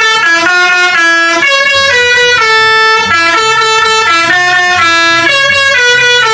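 Telolet bus horn, a multi-tone musical horn, playing a quick melody of stepped notes.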